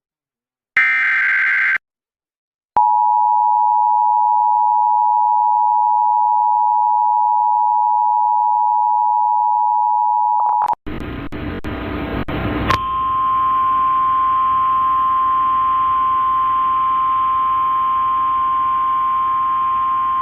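Emergency Alert System broadcast tones. A one-second screech of SAME digital header data comes first. Then the two-tone EAS attention signal holds steady for about eight seconds, and after a couple of seconds of crackling static a single steady NOAA Weather Radio warning tone sounds over radio hiss, signalling that a warning message follows.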